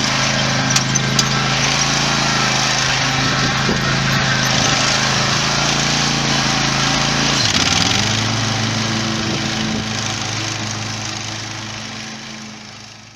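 John Deere Z445 zero-turn mower's engine running steadily. About seven seconds in its pitch drops as the engine slows, then the sound fades out near the end.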